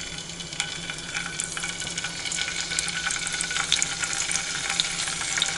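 Eggs frying in a pan: a steady sizzle with many small crackles and pops, growing slightly louder.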